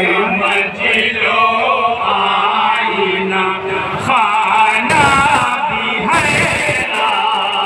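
Men's voices chanting a devotional Urdu kalam (religious poem) together, unaccompanied, through a PA system. The voices swell and grow fuller about four seconds in.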